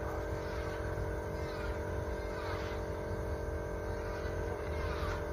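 An engine or motor running steadily at an even pitch, a constant droning hum over a low rumble.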